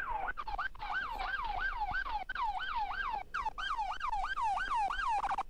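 Police car siren in yelp mode: a fast, even run of wailing pitch sweeps, each dropping from high to low, about four a second.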